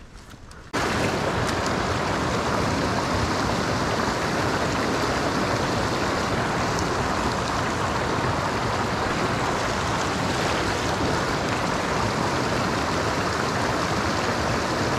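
Shallow rocky creek rushing over and between boulders in small riffles, a steady rush of water that cuts in suddenly about a second in.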